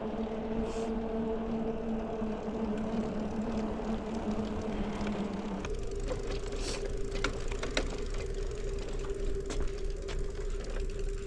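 Cabin noise inside a Toyota 4Runner while driving: a steady engine and road drone with scattered light clicks and rattles. The drone's pitch changes about halfway through.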